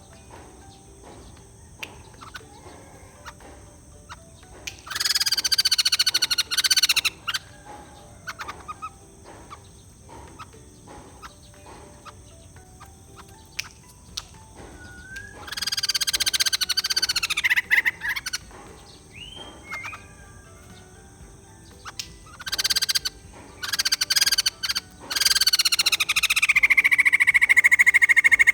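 White-crested laughingthrush calling in loud bouts of fast, rattling, many-layered calls: one about five seconds in, another around sixteen seconds, and a longer one from about twenty-three seconds on that ends in a held steady note. Softer calls and clicks fill the gaps between bouts.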